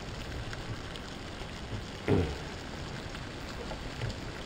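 Water at a vigorous rolling boil in a small aluminium cook pot over an alcohol stove: a steady bubbling, sizzling hiss. A single short, dull thump stands out about two seconds in.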